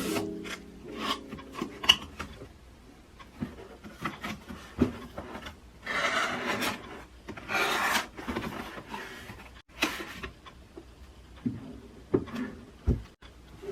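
Packaging being handled and opened during an unboxing: scattered light taps and clicks, with two longer rasping scrapes about six and eight seconds in.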